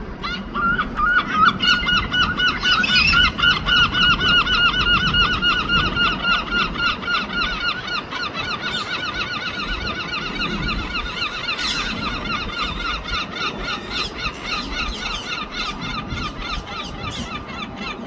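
Two herring gulls calling together in a long call: a rapid, unbroken run of repeated yelping notes, loudest over the first few seconds and easing off a little toward the end.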